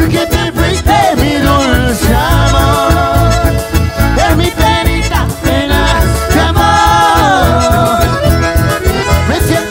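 Live band playing Argentine folk music, with an accordion carrying the melody over acoustic guitar, keyboard and bass and a steady low beat.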